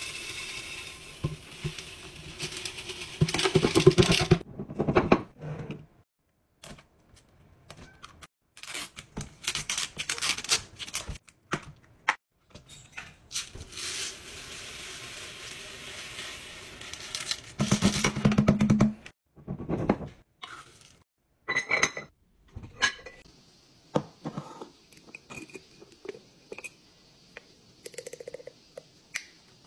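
Downy Light scent beads poured from their bottle into a glass jar: a rattling hiss of small beads falling onto glass, in several pours with pauses between. Near the end, separate clicks and taps of glass and plastic.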